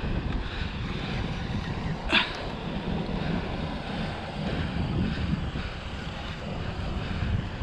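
Wind buffeting the microphone in a steady low rumble, with one short sharp sound about two seconds in.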